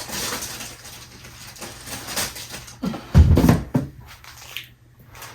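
Handling noise from assembling a candy-and-frosting house kit on a table: scattered small clicks and rustles, with one heavy low thump a little past halfway.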